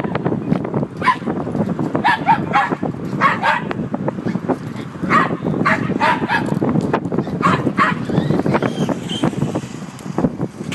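Dogs barking in quick runs of short barks over a steady low rumbling noise, the barks thinning out near the end.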